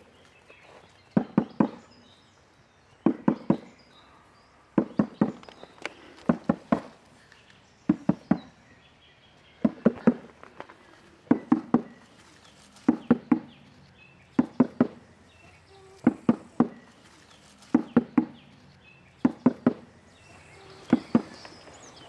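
A drum beaten in a steady repeated rhythm: a quick group of two or three strokes about every one and a half seconds.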